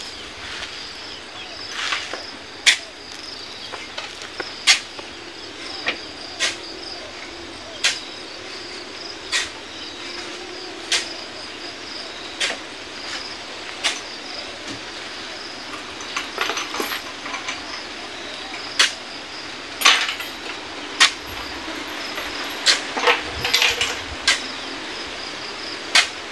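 A steel shovel digging into a sand pile and throwing sand up into a dump truck, loading it by hand: a short, sharp scrape-and-strike about every one and a half seconds. Steady insect chirring runs underneath.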